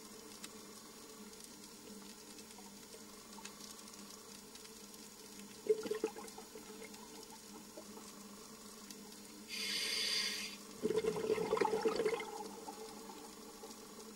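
Scuba diver breathing through a regulator underwater over a steady low hum: a short bubbly burst about six seconds in, then a hiss of inhalation about ten seconds in, followed at once by a rush of exhaled bubbles.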